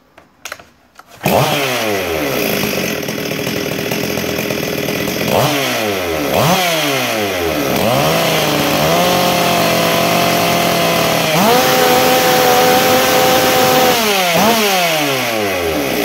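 Ported Stihl 044 two-stroke chainsaw with a dual-port muffler starting about a second in. It idles with quick throttle blips and is held at wide-open throttle twice, the second time higher and for about three seconds. At full throttle it runs at about 15,000 rpm, high enough that the builder means to turn it down to 13,500.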